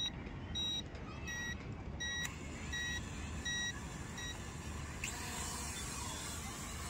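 Budget toy drone and remote beeping: a regular series of short high beeps, about three every two seconds, stopping just after four seconds in. About five seconds in the drone's small propellers spin up with a steady high whir.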